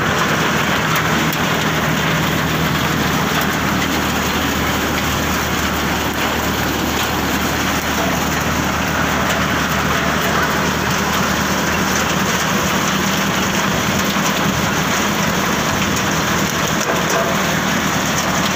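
Tractor-driven groundnut thresher running steadily: a loud rushing rattle of peanut pods and vines passing through the machine, over a low hum from the engine.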